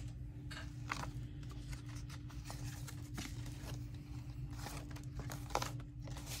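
Scraps of paper being handled on a craft table: intermittent light rustles and a few soft taps, the clearest about a second in and near the end.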